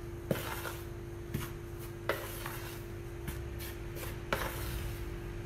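Hands stirring dry flour and dry yeast in a large bowl: a soft rustling, with light clicks against the bowl about once a second, as the flour is mixed and aerated.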